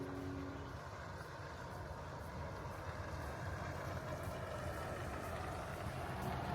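Steady low rumble of vehicle noise, with the last held notes of music dying away in the first second.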